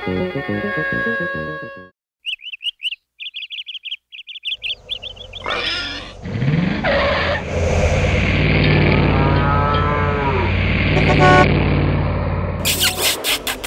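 Music stops, then a short bout of bird chirping. From about four seconds in, a vehicle engine sound effect runs with a steady low hum and noise, with a rising glide and some wavering tones in the middle. A loud noisy burst comes near the end.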